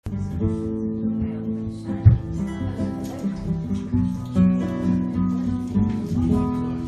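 Music led by a plucked and strummed acoustic guitar, starting abruptly after silence.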